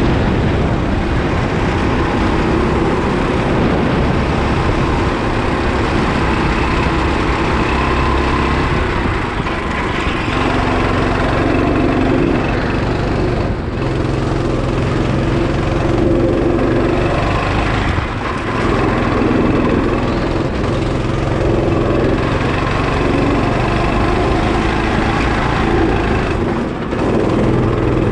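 Go-kart engine running hard on a lap, its note rising and falling with the throttle, with a few brief dips where it eases off.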